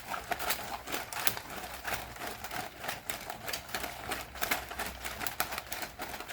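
A deck of tarot cards being shuffled by hand: a quick, irregular patter of card clicks and slaps.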